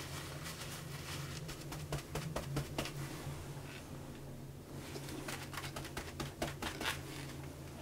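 Tissue paper crinkling and rustling as it is pressed and rubbed against a plastic-backed dog pee pad, in two spells of crackles, over a steady low hum.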